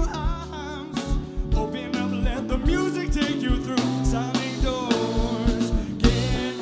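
Live band playing: a man singing over electric guitar, bass and a drum kit, with the drums hitting steadily.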